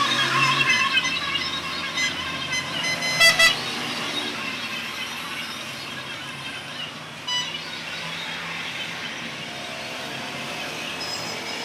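Steady noise of road traffic, with a short loud horn-like toot about three seconds in and a fainter one around seven seconds.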